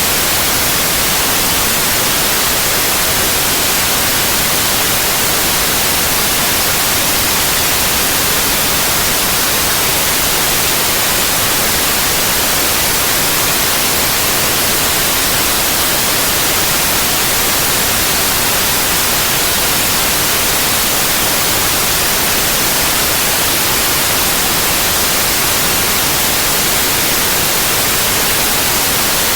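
Synthetic white noise: a steady, even hiss with no change, weighted toward the high end.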